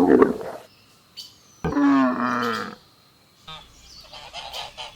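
Camel calling: a rough growling roar at the start, then a louder, drawn-out moaning bellow that falls in pitch about two seconds in, followed by quieter grumbling.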